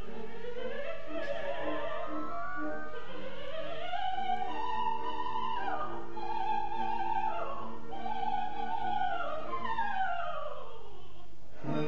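Coloratura soprano singing with orchestra: rising runs to held high notes and long sweeping descending runs over sustained accompaniment, with the orchestra coming in fuller right at the end.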